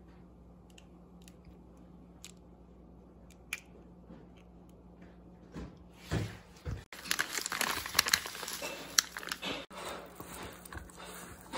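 Plastic packaging crinkling and rustling loudly for a few seconds in the second half, as a bag of sweet potato starch is handled and poured. Before that there are only a few faint clicks and a single thump.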